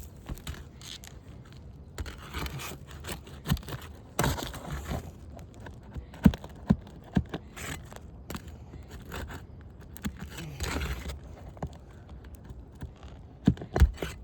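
Asphalt roof shingles being scraped and pried loose to get at their nails, with bouts of scraping and several sharp knocks.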